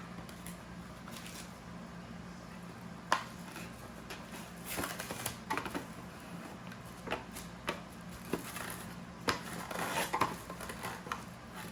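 Plastic cling wrap crinkling and crackling in scattered bursts as it is pulled off and wrapped around a ball of pasta dough, over a steady low hum.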